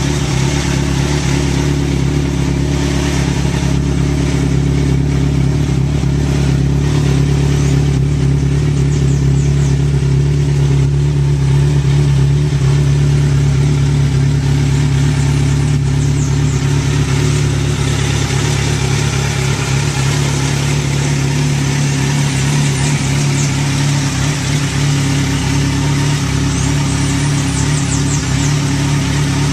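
2014 Kawasaki Z1000SX's inline-four engine running steadily at idle through an aftermarket full exhaust system, its note holding an even pitch.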